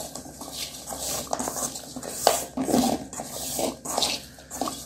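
Wet squelching and irregular clicks of hands kneading masala-coated chicken pieces in an aluminium bowl, with occasional knocks of the meat and fingers against the metal.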